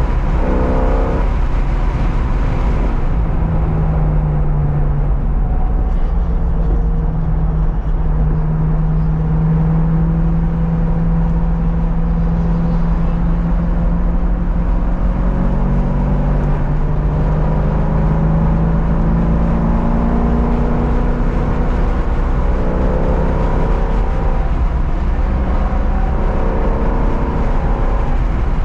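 Car engine being driven hard around a race track, its pitch climbing under acceleration, dropping for braking and downshifts around the middle, then climbing again. There is steady road and wind noise underneath.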